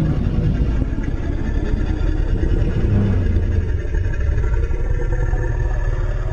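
Deep rumbling roar, a custom-made giant-creature sound effect, loud and heavy in the low end, beginning to fade out at the very end.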